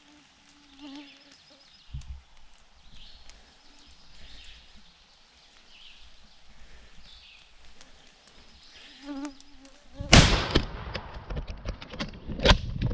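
Faint birdsong, then one shotgun blast about ten seconds in that rings out for a moment, followed by another sharp crack near the end.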